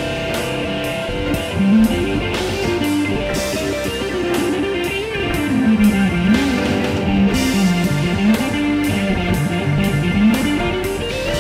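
Nash T-style electric guitar playing an improvised single-note lead, the notes sliding and bending up and down.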